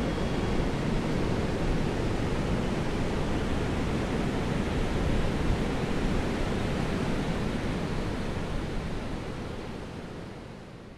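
Ocean surf breaking on a beach: a steady rushing wash of waves that fades out over the last few seconds.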